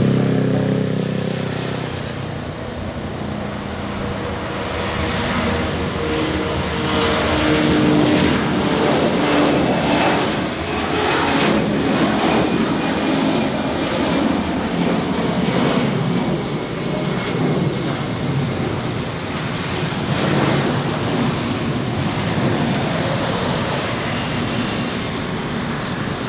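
Four Pratt & Whitney F117 turbofans of a US Air Force C-17 Globemaster III at takeoff thrust, a loud, continuous jet roar as the aircraft lifts off and climbs away. A deep hum at the start gives way to a broad roar.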